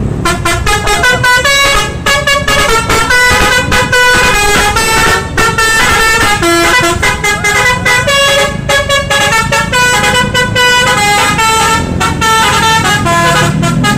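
Bus's basuri telolet musical air horn playing a fast tune. It jumps quickly from note to note, with several horn tones sounding together, and starts suddenly.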